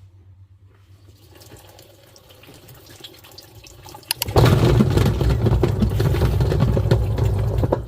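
Twin-tub washing machine churning foamy water in its wash tub. A faint low hum for the first few seconds gives way about four seconds in to a much louder, steady sloshing churn, which cuts off abruptly near the end.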